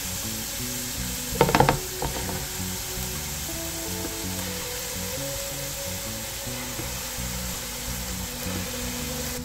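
Raw minced-meat koftas frying in hot oil with ginger-garlic paste: a steady sizzle as the balls are set into the pan, with a sharp, louder burst of spattering about a second and a half in.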